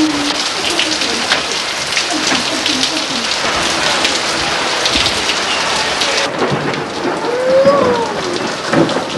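Heavy rain pouring down, a steady hiss thick with spattering drops; the sound turns duller about six seconds in. A child's voice calls out briefly near the end.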